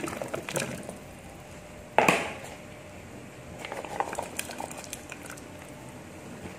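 Cubed potatoes, then sliced carrots, tipped from plastic bowls into a pot of boiling soup, plopping into the water over the bubbling of the boil. There is one loud splash about two seconds in, then a run of smaller plops around four seconds in.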